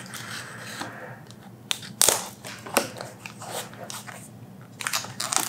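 Plastic shrink wrap on a tablet box crackling and crinkling as it is slit with a pocket knife and handled. There are sharp cracks about two seconds in and again just after, and denser crackling near the end.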